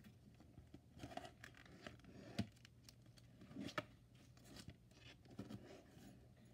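Faint handling of a spiral-bound paper notebook: soft rustles of the cover and pages with light taps against the wooden desk as it is opened and closed. Two sharper taps stand out, about two and a half and four seconds in.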